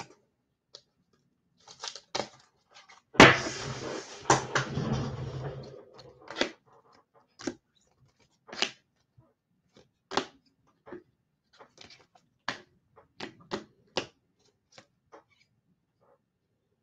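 Trading cards being sorted and handled on a table: scattered light clicks and taps, with a louder rustling clatter about three seconds in that lasts a couple of seconds.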